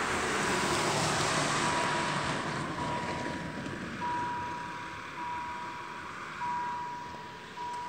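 Level-crossing warning bell beeping with one steady tone, a long beep about every 1.2 seconds: the crossing warning a train is approaching. Under it, the noise of a car driving away over the crossing fades.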